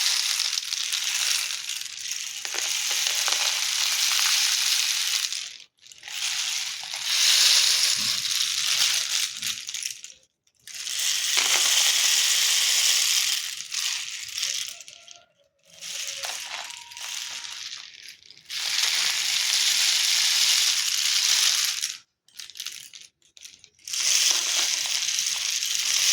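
Homemade rainstick, a cardboard tube with toothpicks pushed through it, tipped over again and again so the popcorn kernels inside cascade down past the toothpicks in a rain-like rushing patter. There are about six pours of several seconds each, with short pauses between them as the tube is turned.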